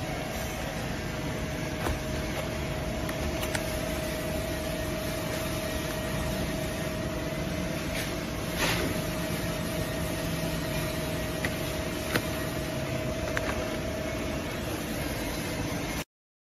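Automatic cling-film fruit tray wrapping machine running with a steady hum and a steady whine, with scattered sharp clicks and snaps over it; the sound cuts off suddenly near the end.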